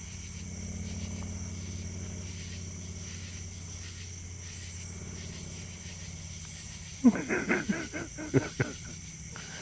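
Steady insect chirring over a low hum. About seven seconds in, a loud burst of quick, pulsed voice sounds lasts just under two seconds.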